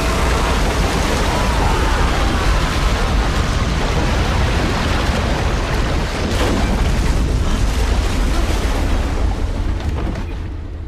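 Edited sound effect of a character's mutation: a loud, continuous explosion-like rumble with a heavy low end, fading out near the end.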